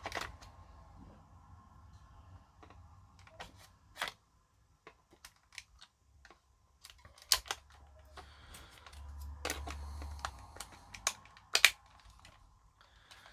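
Scattered light plastic clicks and taps from handling the small Aiwa HS-T120 personal stereo cassette player as batteries are fitted, with a short stretch of rustling about nine seconds in.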